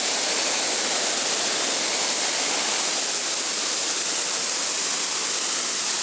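Small waterfall: water running over rock ledges in a steady, even hiss.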